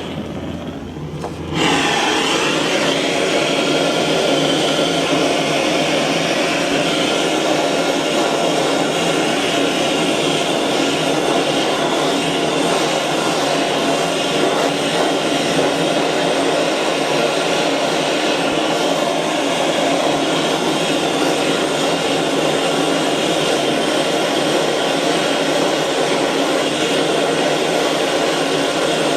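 Gas blowtorch burning steadily with a loud rushing flame, heating a joint for silver soldering. It is much lower at first and comes up to full flame about a second and a half in, then holds steady.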